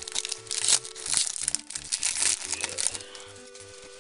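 Foil wrapper of a Pokémon card booster pack being crinkled and crumpled by hand, with crackling for about three seconds that then dies down.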